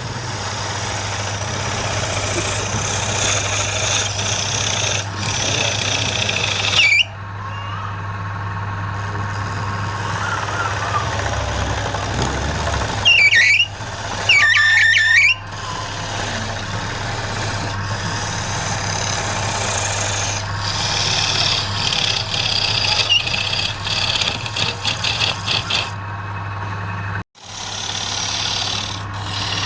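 Wood lathe running with a steady motor hum while a turning tool cuts the spinning wood in long passes that stop and start, with a couple of brief squeals about halfway through.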